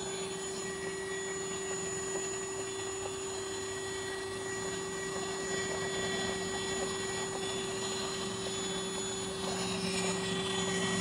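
Wet/dry shop vacuum running steadily to power a bucket bee vacuum, a constant motor whine over the hiss of air drawn through the hose.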